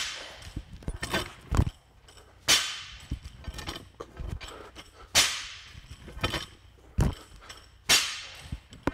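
Barbell loaded with bumper plates being power-cleaned and set back down on gym turf, each rep landing with a thud and a clanking rattle of the plates on the bar that rings and dies away. The landings come several times, about every two and a half seconds.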